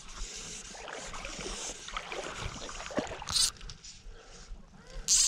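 Fly line swishing in short, sharp zips, about one a second in the second half, as it is cast and stripped through the rod guides, over a steady hiss.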